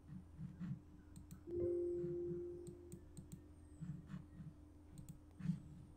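Computer mouse clicks. About a second and a half in comes a single pitched tone that fades away over about a second and a half, over a steady low hum.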